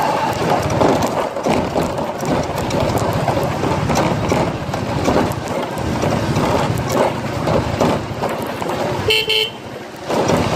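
Ride noise from a motorcycle on a rough street: steady engine, wind and rattling. Near the end a vehicle horn gives one short toot.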